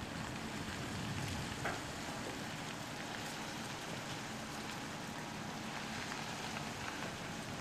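A steady hiss over the faint low hum of the heavy-haulage lorry's diesel engine as it slowly moves the low-loader.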